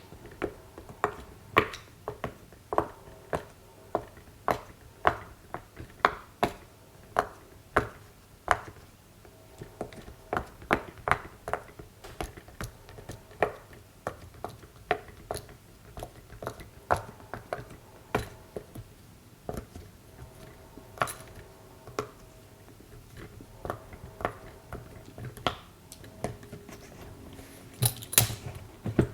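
Silicone pop-it fidget toy bubbles being pressed through one after another: a steady series of sharp little pops, about one or two a second, with a louder cluster of crackles near the end.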